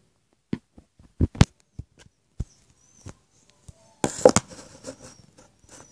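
Handling noise from a phone being picked up and moved: a few scattered clicks and knocks as fingers grip it, then a louder rubbing burst about four seconds in as a hand covers it.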